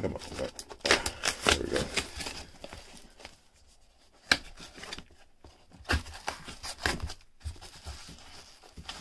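Cardboard shipping box being torn and pried open by hand: flaps ripping, scraping and rustling in irregular bursts, with sharp taps and clicks. It goes quieter about three seconds in, then picks up again with scrapes and rustling as the hands reach in.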